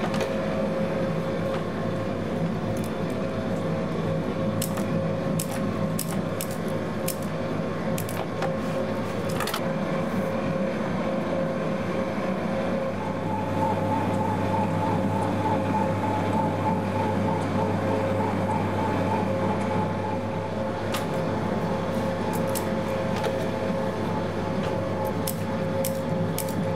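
Electric pasta extruder running steadily as it presses dough through a bronze die: a constant motor hum with a wavering higher tone that joins for several seconds in the middle. Scattered light clicks from handling the pasta and scissors.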